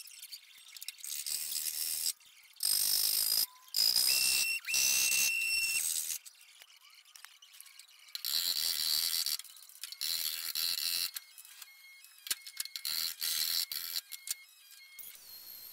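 Sanding and grinding on the bare steel rear quarter panel of a 1970 Datsun 240Z: several short bursts of hissing abrasive noise, some carrying a steady high whine, with pauses between them.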